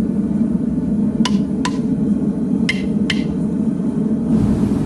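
Four light metallic clinks, each with a short ring, coming in two quick pairs over a loud steady low rushing roar.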